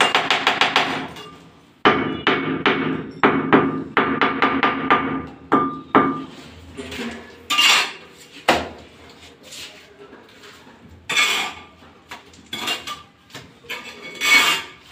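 Mason's trowel tapping a ceramic wall tile to bed it into the mortar: rapid runs of sharp, ringing taps, about four or five a second, in the first half. In the second half come a few separate, noisier strokes of the trowel.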